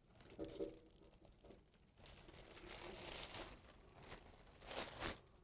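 Thin plastic laminating film crinkling faintly as it is handled and threaded under a roll laminator's idler bar. The rustle grows from about two seconds in, with a couple of stronger crinkles near the end.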